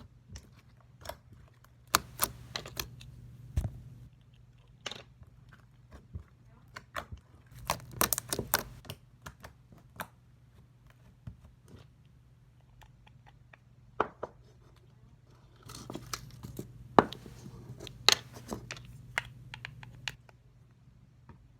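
Glitter slime being squeezed and poked by hand, giving scattered small clicks and crackly pops at irregular intervals, with a busier stretch near the end. A steady low hum runs underneath.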